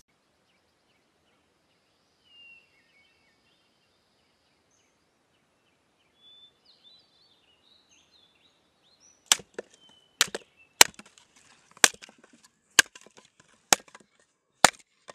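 Sharp chopping knocks, about one a second, begin roughly nine seconds in. Before them it is near silent apart from a few faint high chirps.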